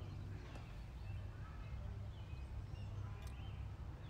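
Birds chirping in short scattered calls over a low, steady rumble.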